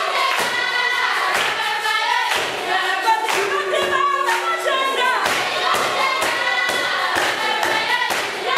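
A choir of children singing together, with a drum struck about twice a second.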